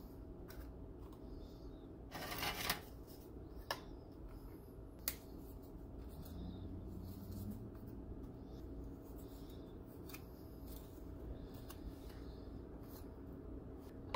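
Dry graham crackers being handled and laid onto pudding in a glass baking dish: faint crisp rustling about two seconds in, then a few light clicks of cracker on cracker or on the dish's rim.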